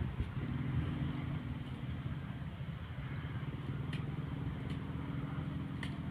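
A small engine running steadily at an even speed, a low continuous hum, with a couple of faint ticks.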